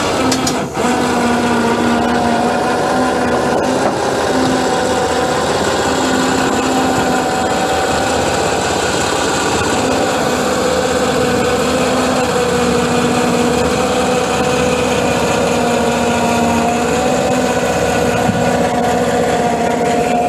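Small electric motor winding in a winch cable, running steadily under load as it hauls an aluminium boat's bow up into a pickup bed; it cuts off suddenly at the end.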